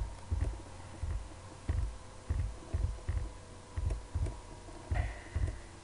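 Computer keyboard being typed on: irregular keystrokes, about two to three a second, heard as dull low taps, over a faint steady hum.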